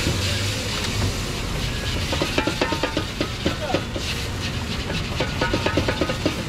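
Water steaming with a hiss in a hot wok over a gas burner, then from about two seconds in a quick scraping and clatter of a utensil worked round the inside of the wok, about five or six strokes a second.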